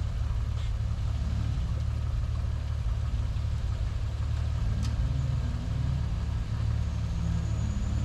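Pickup truck engine idling with a steady low rumble, with a couple of faint ticks over it.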